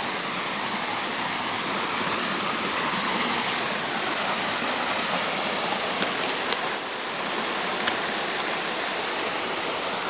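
Small waterfall pouring over a rock ledge into a shallow stream, a steady rushing of water, with a few light ticks about six seconds in.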